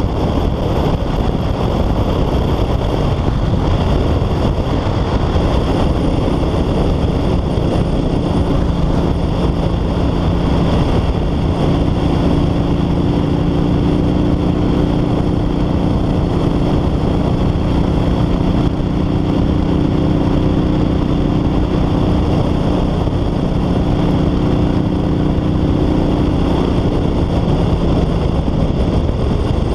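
Kawasaki Vulcan 900 Classic's V-twin engine running at a steady cruise under a heavy, even rush of wind. From about eleven seconds in, the engine's hum stands out as a steady drone.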